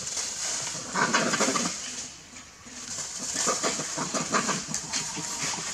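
Animal calls from a dog-and-monkey scuffle, coming in short bursts about a second in and again in a longer run from about three seconds in.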